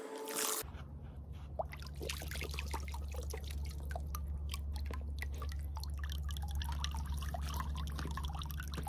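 Water dripping and trickling from a leaky garden-hose spray nozzle into a filled inflatable paddling pool, in many small irregular drips and splashes over a steady low hum.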